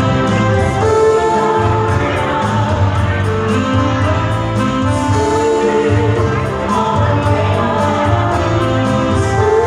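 A live band playing a song with vocalists singing, amplified through PA speakers.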